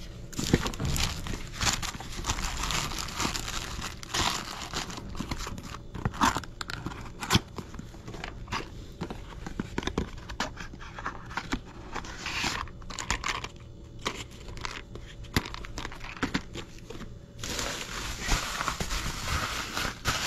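Plastic and cardboard packaging handled by hand: crinkling and rustling, with scattered clicks and taps as boxes are opened and moved. A denser stretch of rustling comes near the end.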